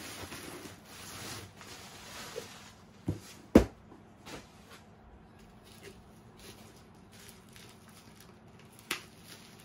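Bubble wrap rustling and crinkling as a glass vase is unwrapped from a cardboard box, with a loud knock about three and a half seconds in. After that come quieter rustles of plastic and a sharp click near the end as scissors cut the wrap.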